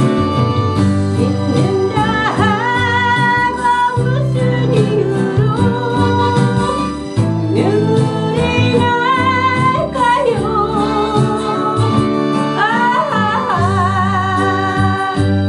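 Music: a slow melody of held notes with vibrato over a steady bass and plucked-string accompaniment.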